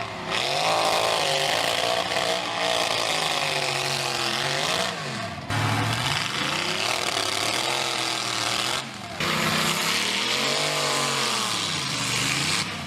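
Chainsaw engine running hard while cutting, its pitch repeatedly dipping under load and climbing back. The sound breaks off abruptly twice, about five and nine seconds in.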